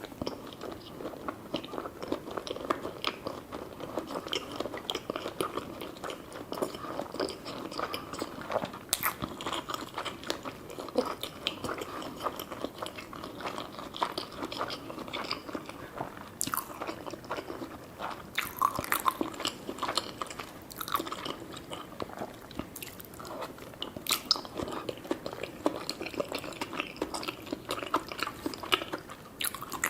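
A person chewing and biting food close to the microphone, with steady wet chewing and scattered sharp clicks throughout.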